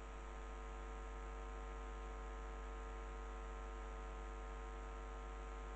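Steady electrical hum with a faint hiss underneath and nothing else happening; it gets slightly louder right at the start.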